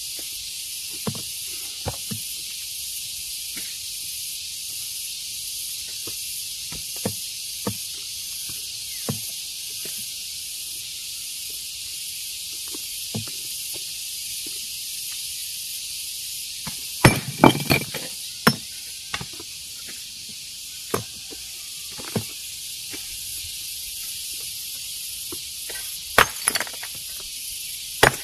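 Scattered sharp knocks of a hammer striking stone, with a quick flurry of strikes a little past halfway and another near the end, over a steady high hiss.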